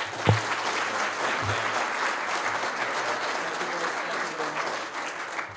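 Audience applauding steadily, dying away near the end, with a sharp low thump just after it begins and a softer one about a second later.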